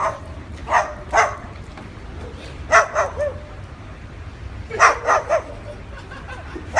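A dog barking in short sharp barks: two together, two more, then a quick run of four, and one last bark at the end.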